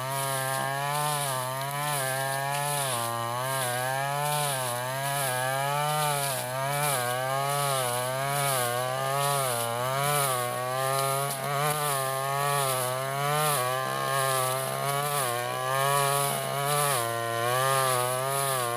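Stihl FR3001 brush cutter engine running at high speed as it cuts thick tall grass, its pitch repeatedly sagging under the load and picking back up every second or two.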